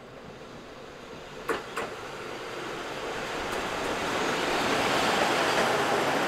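Train running on rails, its noise growing steadily louder, with two sharp clicks about a second and a half in.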